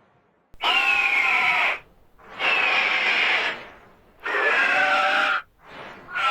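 Harsh screamed vocal effects: three loud, rasping screams of about a second each, each sliding down in pitch, with a fourth starting near the end.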